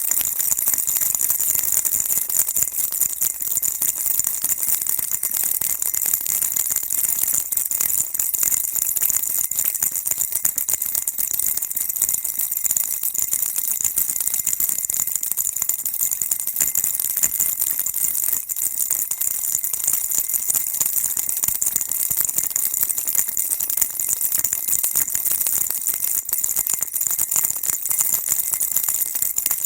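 Baby rattle shaken continuously: a steady, dense, high-pitched rattling with no pauses, used as soothing white noise for a baby.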